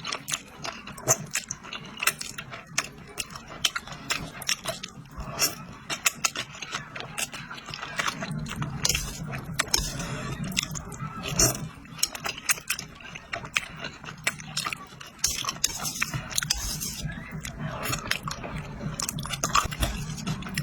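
A person chewing a mouthful of spicy stir-fried rice noodles close to the microphone, with many small sharp mouth clicks coming irregularly over a low steady hum.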